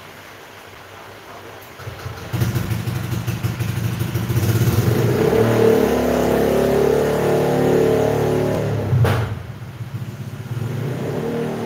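An engine starts running about two seconds in and revs up, then holds steady and loud. There is a sharp click about nine seconds in, after which it drops back and keeps running.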